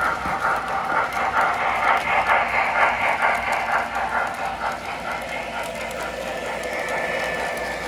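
O gauge model steam locomotive and freight cars rolling past on the track with a steady mechanical rattle of wheels and motor. A rapid, even pulsing runs through the first few seconds, and the sound grows quieter and steadier about halfway through as the train passes.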